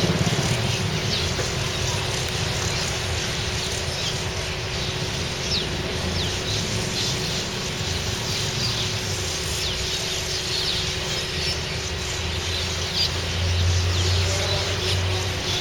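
A large flock of small birds chirping, many short high calls overlapping throughout, over a steady low hum.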